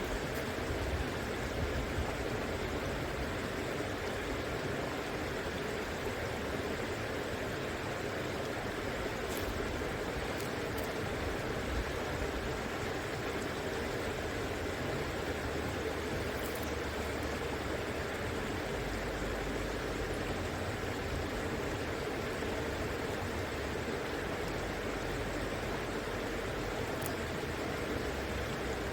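River water flowing, a steady even rushing with a low rumble underneath.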